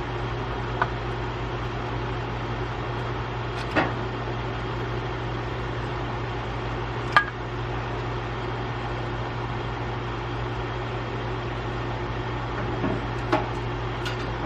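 A steady low mechanical hum with about five sharp clicks and clinks from hand-tool work on plastic coolant-bottle fittings. The loudest click is about halfway through.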